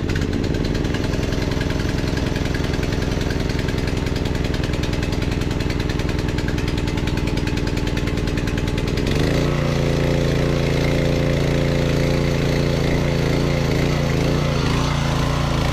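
Small gas engine of a Kärcher pressure washer catching and running steadily. About nine seconds in, its note changes and settles into a steadier, stronger tone.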